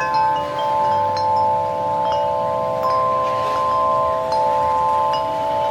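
Large six-tube aluminium wind chime (Nature's Melody Aureole Tunes, 42 inch) ringing: several tuned tubes sound together in long, sustained overlapping tones, struck again every second or so, with a little wind on the microphone.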